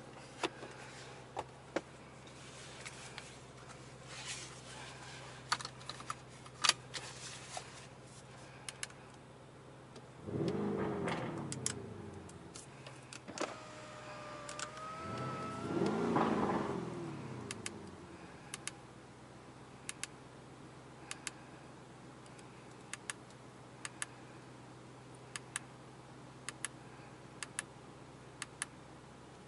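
Lamborghini Urus twin-turbo V8 heard from inside the cabin, running low and steady at low speed. The revs swell twice, about ten and sixteen seconds in, each time sliding back down in pitch. Small clicks and ticks are scattered throughout.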